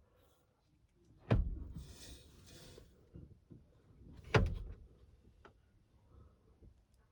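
Two sharp knocks about three seconds apart, each with a low thud after it, and a brief rustling scrape between them, as of parts being handled and set down.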